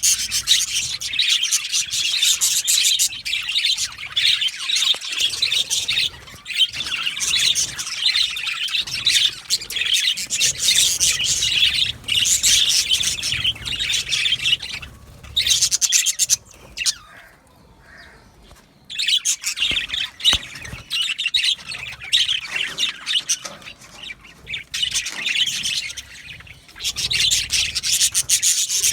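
A flock of budgerigars chattering and chirping in a busy, continuous stream, dropping away briefly about two-thirds of the way through before picking up again.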